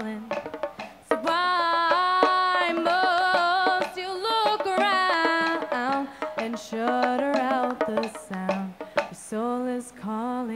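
A woman singing over a backing track with sharp percussion hits, holding long notes and ending on a wavering held note.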